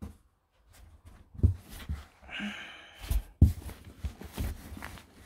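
Yarn cakes being shifted and pulled out of a cardboard box: soft rustling, handling noise and a few dull knocks, with a breathy sigh about halfway through.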